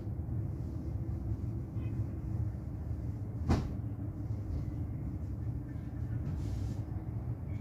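Steady low rumble of road traffic heard from high above the highway, with a single sharp knock or click about three and a half seconds in.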